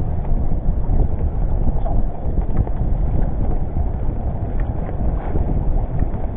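Wind buffeting the microphone on an open boat at sea: a steady low rumble that rises and falls, with a few faint ticks.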